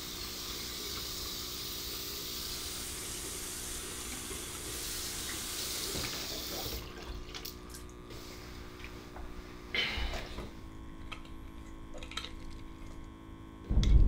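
Tap water running into a bathroom sink, stopping about seven seconds in. A few small clicks and a brief louder noise follow.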